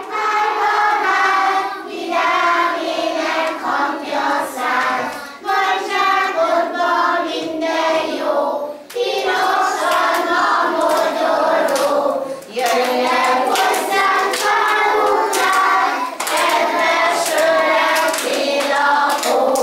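A group of young children singing a song together, in phrases of a few seconds with short breaks for breath between them.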